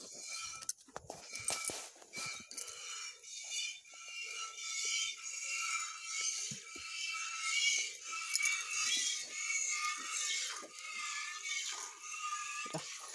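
Streams of milk squirting into a small metal pot as a cow is milked by hand with both hands: a hissing spray that swells and fades over and over with the strokes.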